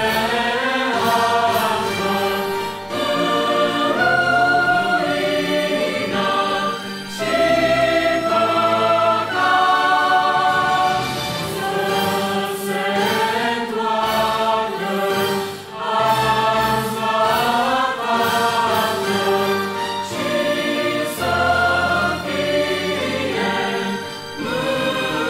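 Mixed youth choir singing a Romanian Christian hymn in parts, holding chords that change every second or two.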